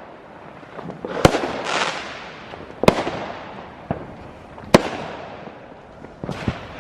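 Fireworks going off: three sharp bangs about two seconds apart, each trailing off in an echo, with crackling between them and a fresh burst of crackling near the end.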